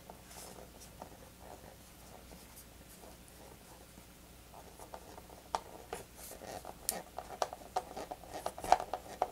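Small hand screwdriver driving a screw into the tail of a foam RC model plane. There is faint scratching at first, then from about halfway a quick run of small creaks and clicks that grows louder toward the end.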